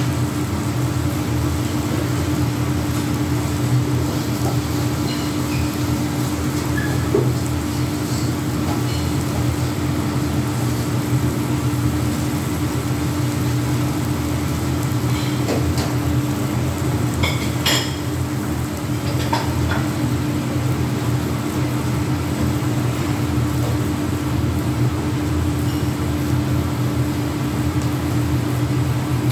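Onions, peppers and meat sizzling on a hot flat-top griddle over a steady low machine hum. A few light clinks of metal or dishes come about two-thirds of the way through.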